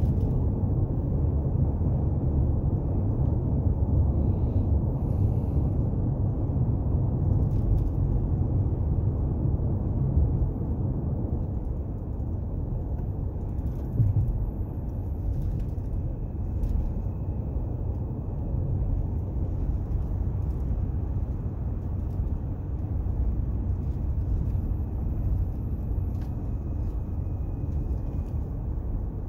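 Steady low rumble of road and engine noise inside a moving car's cabin, with one brief knock about halfway through.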